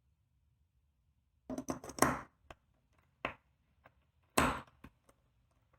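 Small metal padlock parts clicking and knocking as the reassembled actuator is pushed against its spring to test it: a quick cluster of clicks, a single click, then a louder click with a short rattle. It springs back, but weakly.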